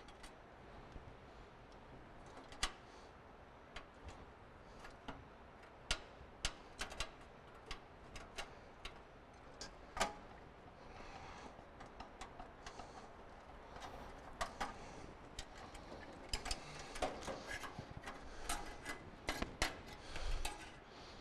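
Scattered light metallic clicks and taps of a hand nut driver turning out the small screws that hold a furnace igniter's mounting bracket, along with the sheet-metal parts being handled. The clicks come irregularly and grow more frequent in the second half.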